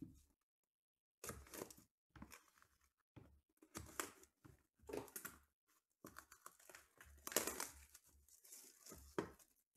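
Shrink-wrap on a sealed trading-card box being slit with a small knife and torn open: a string of short plastic tearing and crinkling rasps, the loudest about seven seconds in.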